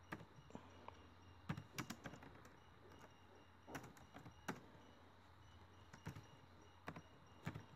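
Computer keyboard keystrokes: about a dozen soft, irregular clicks, some in quick runs and others alone with pauses of a second or more between them.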